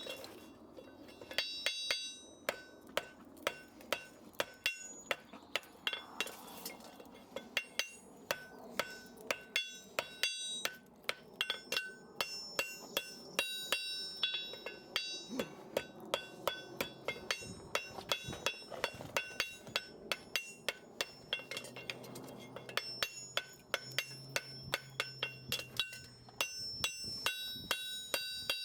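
A farrier's hammer striking steel again and again, about two blows a second, each with a bright metallic ring. The blows come in runs with short pauses between them.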